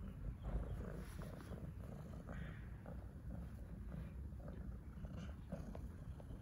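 Domestic cat purring steadily while being stroked, a low continuous rumble.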